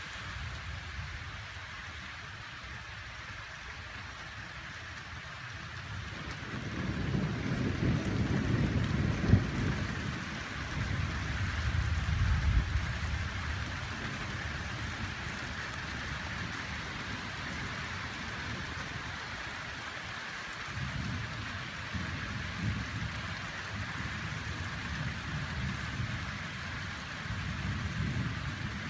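Steady rain hissing through a thunderstorm. About six seconds in, a long low thunder rumble builds and rolls for several seconds, with a brief sharp crack near its height. Fainter rumbles of thunder come again later.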